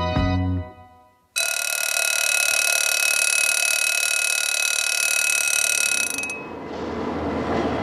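Animated-film soundtrack: a short musical phrase dies away, then after a moment of silence a loud, steady, harsh tone cuts in abruptly and holds for about five seconds before giving way to a rising rushing noise.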